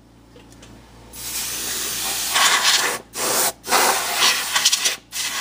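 Coarse sandpaper rubbing on the paper edge of an antique Rola speaker cone, grinding off old glue: a rasping hand-sanding noise that starts about a second in and runs in a few long strokes with brief breaks between them.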